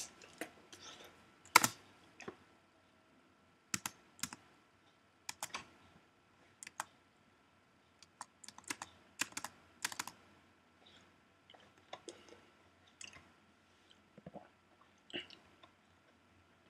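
Scattered, irregular clicks and light taps, some in quick clusters, over a faint steady tone.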